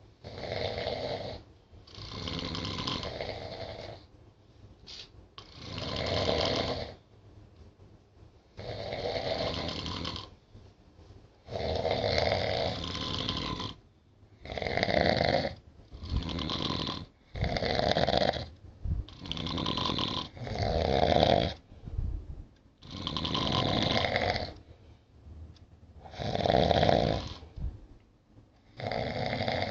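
Two sleeping people snoring, a loud rasping snore every one to three seconds, the snores coming closer together and alternating in the second half.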